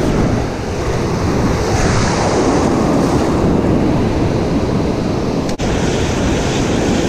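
Ocean surf washing in and breaking around a wader, with wind buffeting the microphone. The sound cuts out for an instant about five and a half seconds in.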